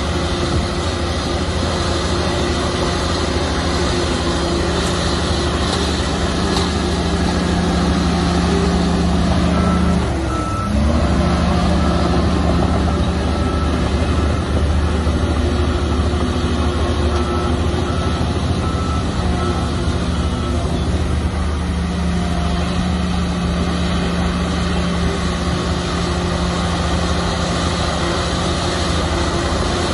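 Shantui bulldozer's diesel engine running steadily under load. Its note dips briefly about ten seconds in, and then a reversing alarm beeps for roughly ten seconds over the engine as the machine backs up.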